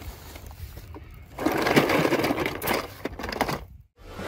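Die-cast toy cars clattering and clicking against each other in a cardboard box as a hand rummages through them, faint at first and much louder from about a second and a half in, then cutting off abruptly near the end.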